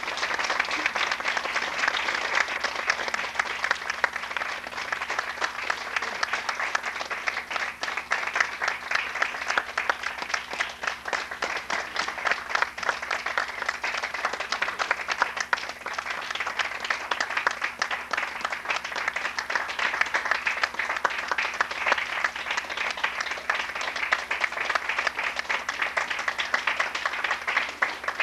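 Theatre audience applauding steadily, many hands clapping at once in a dense, even patter.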